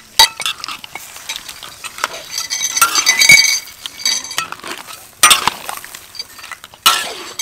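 A metal spatula stirring and scraping prawns and onions around a large steel wok, clinking sharply on the metal over a light sizzle of frying. The busiest scraping comes around the middle, with two hard scrapes near the end.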